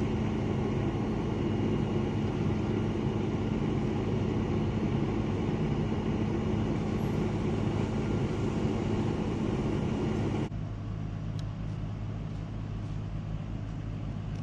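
Fire engine running steadily at the scene, a constant drone and hiss with a steady hum. About ten and a half seconds in it cuts to a quieter engine drone with a low pulsing rumble.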